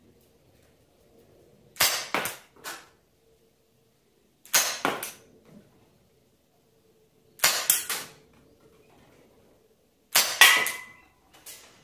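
Marushin M10 Military & Police gas revolver firing BBs: four sharp shots, about three seconds apart, each followed by a short clatter of clicks.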